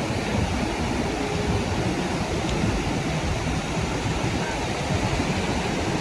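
Steady wash of sea surf on a sandy beach, an even, unbroken rush.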